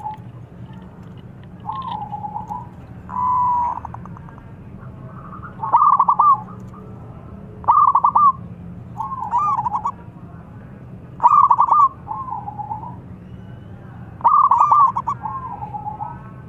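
Young zebra dove cooing, repeating its short stuttering, rolling coo phrase every couple of seconds.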